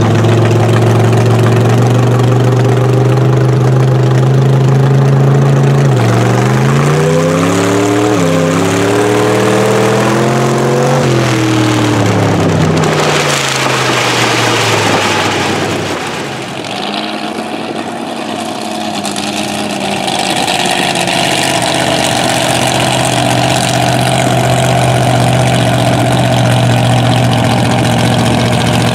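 Mega truck's engine heard from aboard the truck, running steadily, then revving up and down several times from about six seconds in, before a noisy stretch and a drop back to a steady run.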